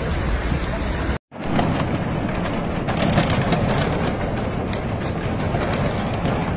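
Steady, loud rushing noise of a heavy rainstorm, with scattered faint ticks in it. It drops out for a moment about a second in, where one clip cuts to the next, then carries on.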